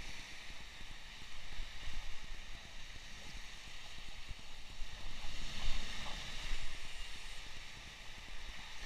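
Wind buffeting the microphone over the steady wash of sea surf on the shore, with the noise swelling for a second or so near the middle.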